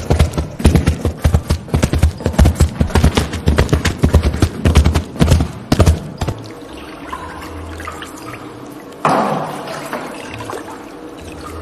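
Hand-made sound effects: a fast, irregular run of taps and thumps for about six seconds, then quieter, with one louder rushing burst about nine seconds in that fades away.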